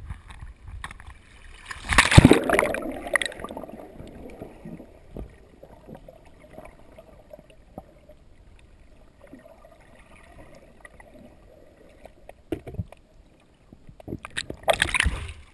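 River water splashing as the camera plunges under the surface about two seconds in, with a gurgle that fades, then low, muffled underwater water noise. A second burst of splashing comes near the end as it breaks back through the surface.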